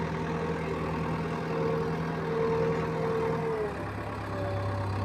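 Diesel engine of heavy machinery running steadily at idle. Its note drops lower about three and a half seconds in.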